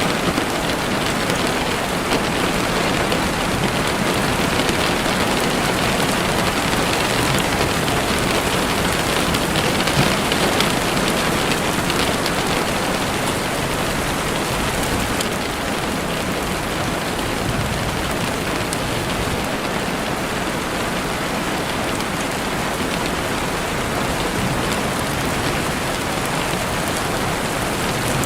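Steady rain falling through trees, with a campfire crackling and a few sharp pops.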